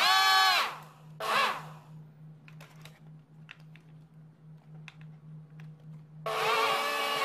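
Twin 180-size brushed DC motors with small propellers whining at high speed, then winding down in the first second. A brief throttle blip rises and falls just after, followed by a quiet stretch with a faint hum and a few light clicks. About a second before the end both motors spin back up to a steady whine.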